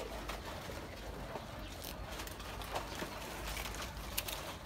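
Goats feeding at a wooden trough: scattered faint crunches and clicks of dry bread being eaten, over a low steady background.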